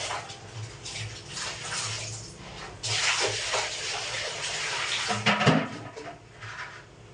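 Water pouring and splashing in a small bathroom as it is cleaned, in irregular gushes with a longer stretch about three seconds in, and a louder knock about five and a half seconds in.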